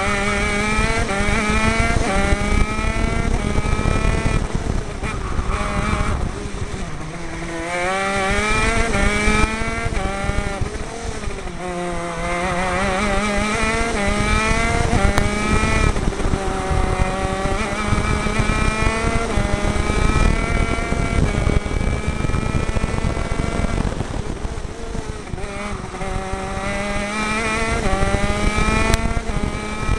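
Onboard sound of a CRG KZ10 kart's 125cc two-stroke KZ gearbox engine at racing speed. The revs climb in a series of rising steps with quick upshifts between them. Three times the engine note falls away as the kart brakes into a corner, then it picks up again.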